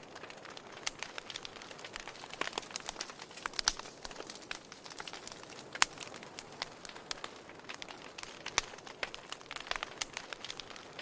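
Wood fire crackling in a fireplace: irregular sharp pops and snaps over a soft hiss, with one louder pop about six seconds in.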